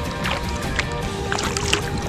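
Sea kayak paddling: short splashes and drips from the paddle strokes over a low rumble of wind on the microphone, with music of held notes playing underneath.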